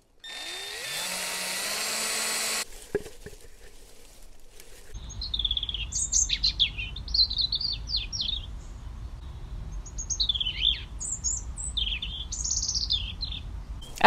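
A steady whir lasting about two and a half seconds, then a few knocks. After that, a songbird sings short, varied high-pitched phrases with pauses between them.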